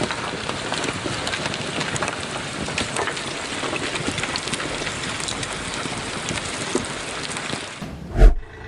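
Heavy rain pouring and pattering hard, with many small ticks of drops striking surfaces. Near the end the rain noise cuts off and a single short, loud, low thump follows.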